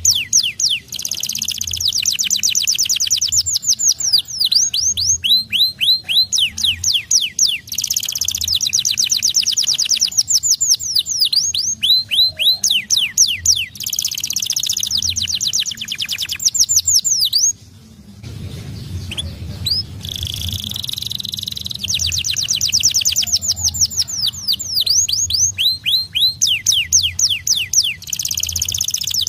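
White domestic canary singing vigorously in long rolls of rapid, repeated high sweeping notes, with a short break about eighteen seconds in.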